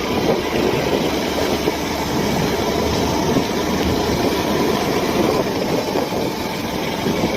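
Motorcycle running at a steady speed while being ridden, its engine under a continuous rumble of road and wind noise.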